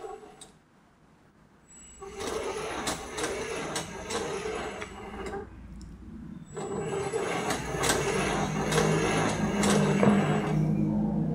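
Lego WeDo motor driving the Lego goalkeeper mechanism, its plastic gears clattering over a low hum. It starts about two seconds in, stops for about a second just past the middle, then starts again and runs louder toward the end. Its speed is set by how close a hand is to the motion sensor.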